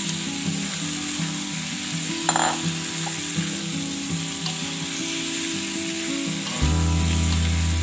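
Fresh shrimp sizzling as they hit hot oil and spice paste in an aluminium wok, stirred with a wooden spatula scraping the pan.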